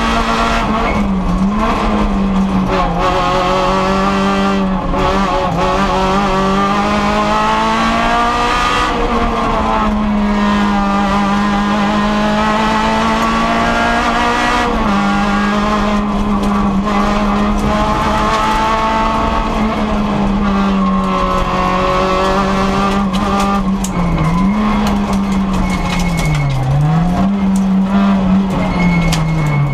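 Rally car engine at high revs, heard from inside the cabin, holding a steady, loud note that dips briefly and recovers several times.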